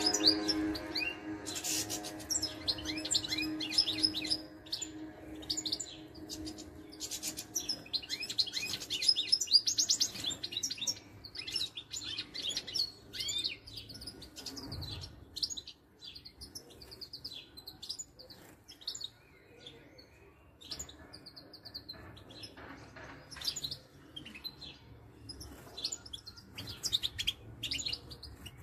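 European goldfinches chirping and twittering in quick, high, rising notes, thick in the first half and sparser later. Music fades out at the start.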